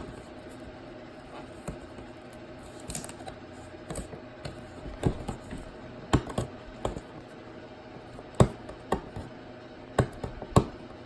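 Hands opening a cardboard box: irregular knocks, scrapes and scratching of cardboard, loudest about eight and a half seconds in.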